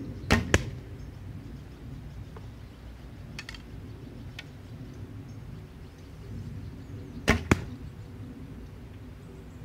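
Wild Mountain Dolomite one-piece hunting recurve bow shot twice, about seven seconds apart. Each shot is a sharp snap of the string on release, followed a quarter second later by a second knock as the arrow strikes the target. Faint clicks in between come as the next arrow is nocked.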